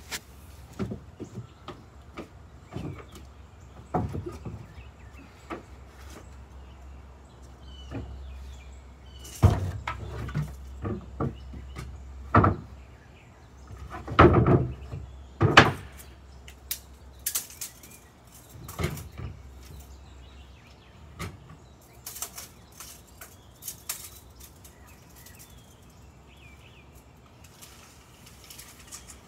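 Wooden boards being handled and set down on a wooden deck: scattered knocks and thumps, loudest in the middle, with birds chirping faintly.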